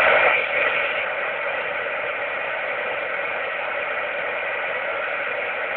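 Steady FM receiver hiss from a 70 MHz (4 m) amateur radio transceiver's speaker with the squelch open on a channel carrying no speech. It starts the moment the Italian station stops talking, a little louder for the first half second.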